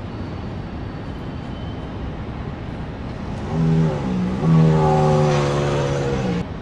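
Steady rumble of a running motor vehicle. Past the middle a low, steady-pitched tone sounds twice, first briefly and then for about two seconds, louder than the rumble, before the sound cuts off abruptly.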